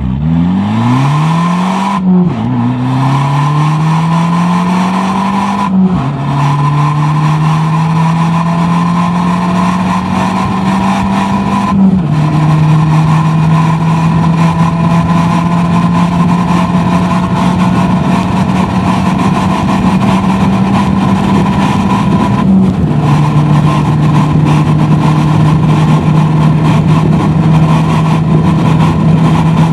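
Abarth 500C Esseesse's turbocharged 1.4-litre four-cylinder engine under full-throttle acceleration, heard from inside the cabin. The engine note climbs steadily through the revs in each gear, with four upshifts marked by sudden drops in pitch at about 2, 6, 12 and 23 seconds in. Each gear pulls longer and more slowly than the one before as the speed builds.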